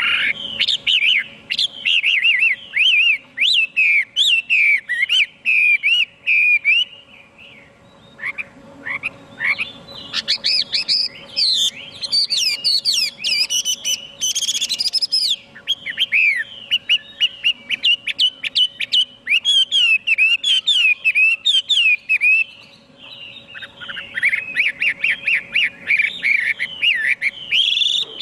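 Chinese hwamei singing a long, rapid, varied song of whistled phrases, with short pauses about eight seconds in and again near the end.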